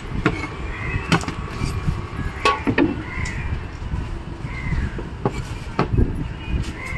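A heavy knife chopping through a large fish on a wooden block, striking several sharp knocks at uneven intervals over steady background noise.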